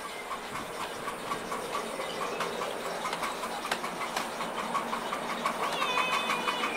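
Miniature 7¼-inch gauge steam locomotive pulling away, its exhaust chuffing in a regular beat that grows louder as it gets under way. A thin squeal comes in near the end.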